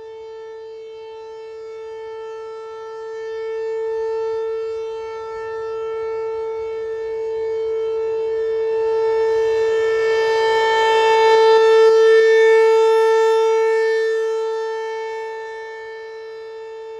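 American Signal T-128 rotating outdoor warning siren sounding the steady alert signal: one unbroken tone of fixed pitch. It swells and fades as the siren turns, loudest about four seconds in and again, louder still, around twelve seconds in.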